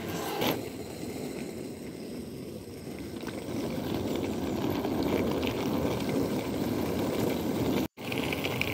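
Hard-shell rolling suitcase's wheels rumbling steadily over rough, cracked asphalt as it is pulled along. A couple of knocks come in the first half-second, and the sound cuts out for a moment near the end before the rolling resumes.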